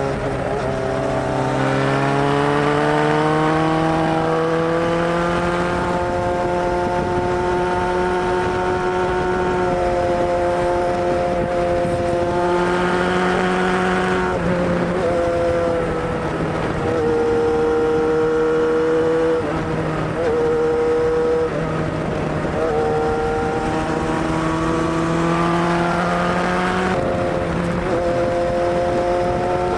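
Kawasaki Zephyr 750's air-cooled inline-four engine running at raised revs. The engine note climbs over the first few seconds, then holds, dipping and rising in steps several times.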